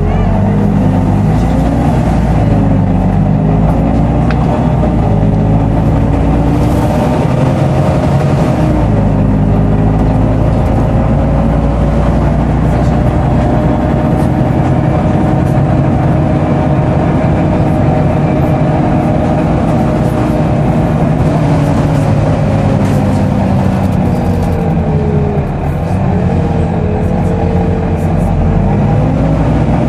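Volvo B9TL double-decker bus on the move, heard from the upper deck: engine drone under the loud, hoover-like whine of its cooling fan, the pitch drifting slowly up and down.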